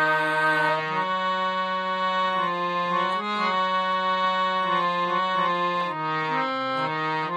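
Harmonium playing an instrumental melody, its reeds sounding steady held notes that change about every half second to a second over a lower sustained note.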